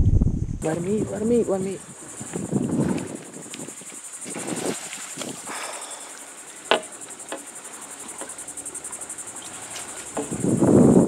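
Insects trilling, a steady high-pitched buzz that sets in about half a second in. A single sharp click comes about two-thirds of the way through, and a louder rush of noise comes near the end.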